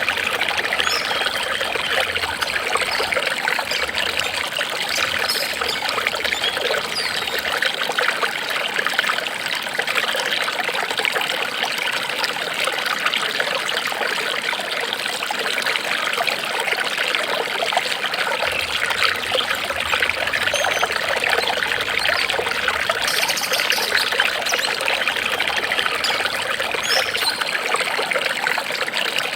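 Water trickling and flowing steadily, like a small stream running over stones.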